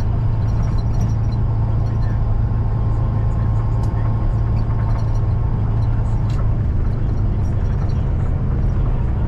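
Steady engine and tyre drone heard from inside the cabin of a vehicle moving along a concrete highway, a constant deep hum with road noise over it.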